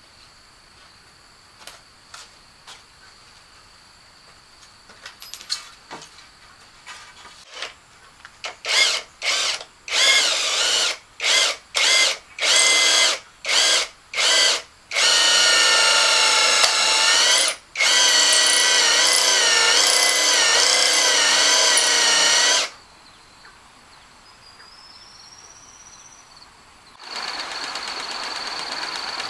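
Electric drill running, first in a string of short bursts, then in two long runs of several seconds each, its high motor whine wavering in pitch. Near the end a steady rushing noise starts.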